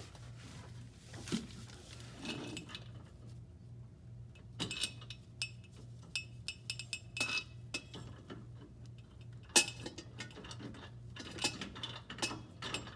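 Irregular metal clinks and knocks of hand tools and bolts against the exhaust pipework as the flex pipe is bolted up, a sharper knock standing out about nine and a half seconds in.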